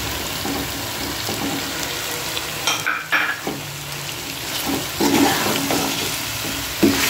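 Chicken feet and chopped tomato sizzling in hot oil in a pan while a metal spatula stirs them, scraping against the pan. There are a few louder scrapes and knocks about three seconds in and near the end.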